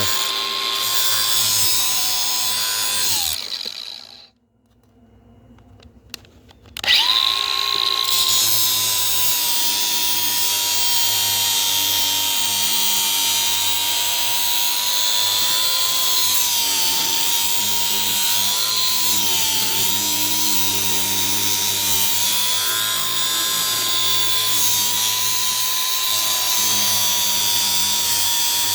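High-speed electric power tool whining steadily. It winds down and stops about three seconds in, starts up again about four seconds later, then runs on with a few brief dips in pitch as it is loaded.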